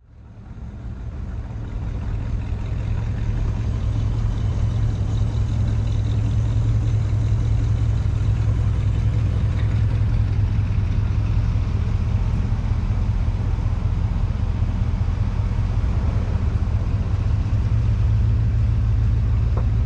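Steady low rumble of a car running, fading in over the first few seconds.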